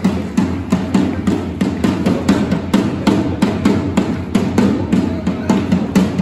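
Marching drum beaten with sticks in a steady rhythm of about three to four strokes a second.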